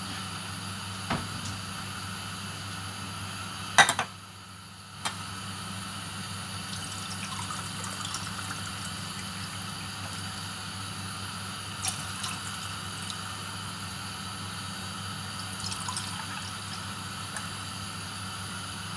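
Steady hum and hiss of kitchen background noise, with a few knocks and clicks from things being handled. The loudest is a sharp knock about four seconds in, after which the hum briefly drops away for about a second.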